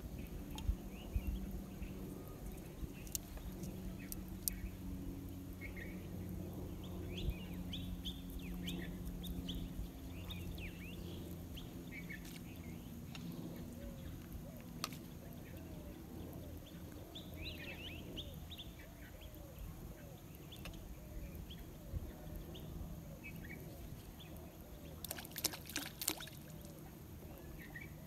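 Scattered bird chirps and calls over a low steady hum, with a quick cluster of sharp clicks near the end.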